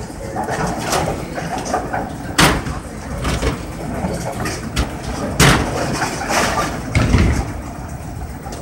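Bowling alley din: a steady low rumble broken by three sharp clattering knocks of balls and pins on the lanes.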